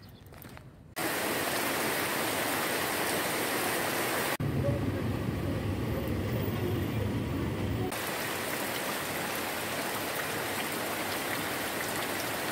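Steady hiss of falling rain, in short clips joined by abrupt cuts about a second in, about four seconds in and near eight seconds. The middle clip carries a low rumble under the hiss.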